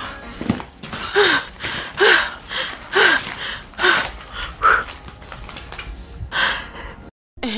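A woman's short, breathy gasping cries, about one a second, each falling in pitch, as she panics. The sounds stop abruptly near the end.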